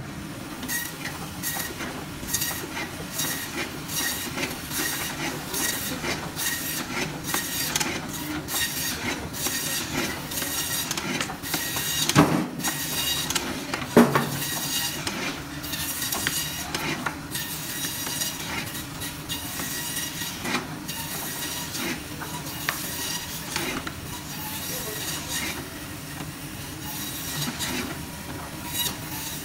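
Meat band saw running and cutting through a frozen boneless lamb leg, slice after slice: a steady motor and blade hum with repeated short scraping bursts as the blade goes through the frozen meat. Two louder knocks stand out around twelve and fourteen seconds in.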